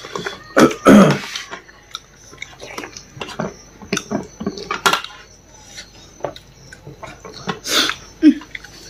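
Dishes and eating utensils clinking and knocking in irregular short taps during a meal.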